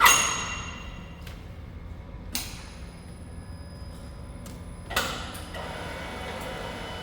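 Metal clanging: a loud strike that rings on for about a second, a lighter knock, then a second ringing strike about five seconds in, over a steady low shop hum.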